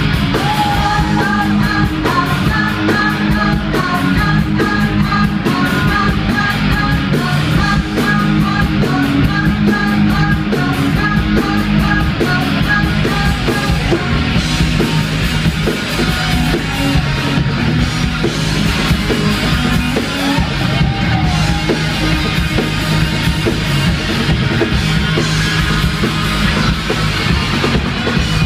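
A live rock band playing loud: electric guitars over a drum kit keeping a steady beat, heard from the audience.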